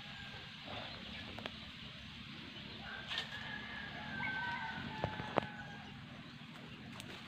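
A rooster crowing once, a drawn-out call about three seconds in that rises near its end, over a low steady rumble; a couple of sharp clicks follow around five seconds.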